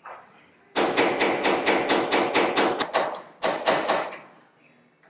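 Ball-peen hammer tapping a punch held on a rivet in an aircraft's aluminium skin, in a rapid run of metallic taps at about six a second. After a brief break about three seconds in, a shorter run follows.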